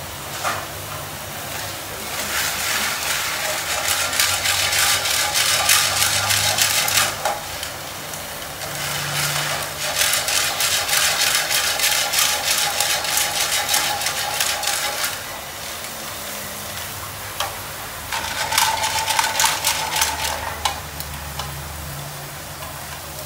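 Snails stir-frying in a pan over a gas wok burner: loud sizzling with the cook's utensils stirring and scraping in the pan, coming in three spells of several seconds each, with a quieter steady sizzle in between.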